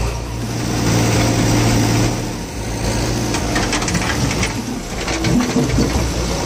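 Sonalika DI-47 RX tractor's diesel engine running steadily, with short rattling knocks around the middle.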